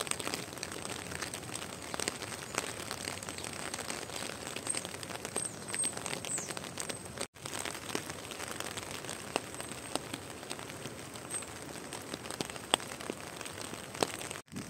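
Steady light rain falling, an even hiss with many separate drops ticking. The sound cuts out for an instant about halfway through and again just before the end.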